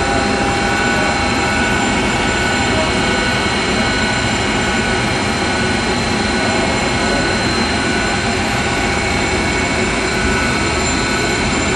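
Loud, steady running noise of boiler-room machinery: a constant rush with several steady high whining tones over it.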